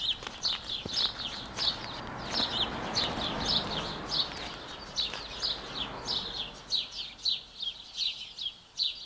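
Small birds chirping in a quick run of short high notes, about two a second, over a soft rushing background that swells in the middle.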